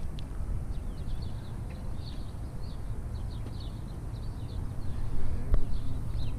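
Small birds chirping over and over in the background, over a steady low rumble on the microphone. There is a sharp click about five and a half seconds in.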